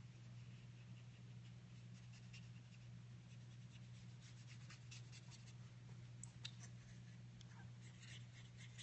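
Faint scratching and light tapping of a pen tip working over heavy, slightly shiny paper as letters are coloured in, over a steady low electrical hum.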